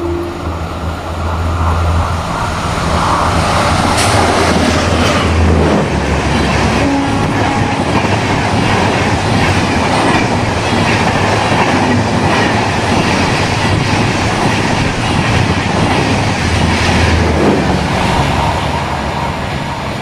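An Indian Railways express passenger train, the Rajdhani behind a WCAM2P electric locomotive, passing close at above 115 km/h. Its wheels make a loud, steady rush over the rails with clickety-clack from the rail joints.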